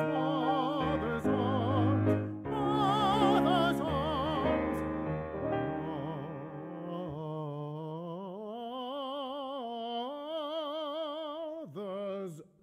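Operatic singing with heavy vibrato over an instrumental accompaniment, ending in one long held note that drifts slowly upward and breaks off near the end.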